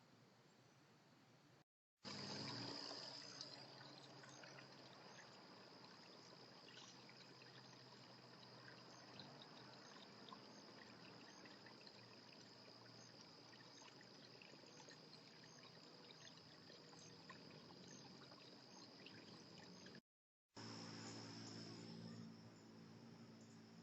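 Faint steady high-pitched trill of crickets over a soft hiss, with scattered small clicks and chirps. The sound drops out completely for a moment twice, about two seconds in and near the end.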